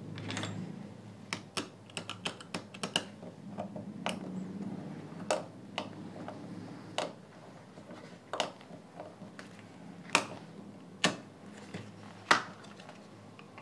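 Irregular sharp clicks and taps of a screwdriver and fingers on the plastic earcup of a Bluetooth headphone as the small screws holding its circuit board are worked out, with the loudest clicks near the end. A low steady hum lies underneath.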